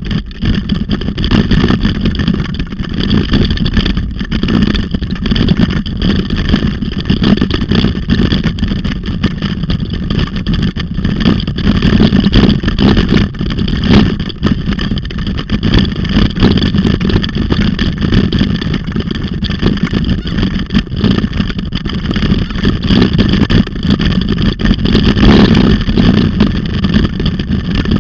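Steady wind rush on the microphone of a camera mounted on a dog-drawn rig, with the rumble and rattle of its wheels rolling fast over a dirt trail.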